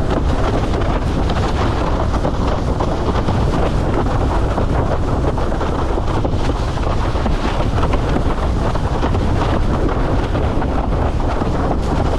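Strong wind blasting across the microphone in a steady, rumbling roar, with water rushing under a windsurf board.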